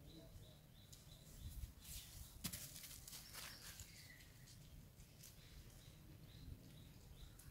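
Faint outdoor ambience: a short high chirp repeating about twice a second, with a stretch of rustling and one sharp click about two and a half seconds in, over a low rumble.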